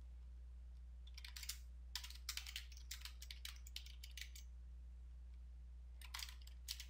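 Computer keyboard typing: quick runs of key clicks, a pause of a couple of seconds, then a few more keystrokes near the end, over a faint steady low hum.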